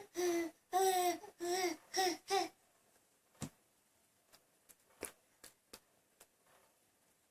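A baby babbling in four or five drawn-out, sing-song vocal sounds, then falling quiet apart from a few faint clicks.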